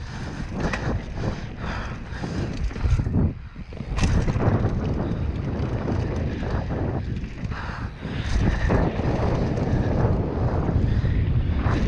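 Wind buffeting the microphone of a mountain bike riding fast down a dirt downhill trail, with the rumble of knobby tyres and irregular rattling knocks from the bike over bumps. It grows louder about four seconds in.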